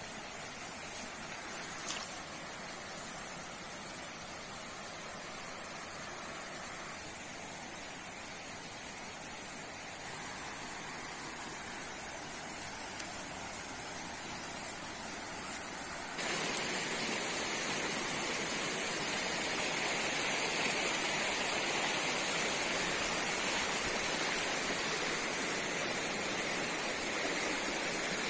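Steady outdoor rushing noise with an even high hiss over it; it gets louder about sixteen seconds in.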